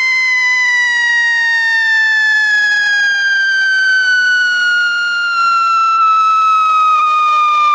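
Pyrotechnic whistle of a Scream 100 whistle-to-salute firecracker burning on the ground: one loud, continuous shrill whistle that slowly falls in pitch. This is the whistle stage, which comes before the ground salute.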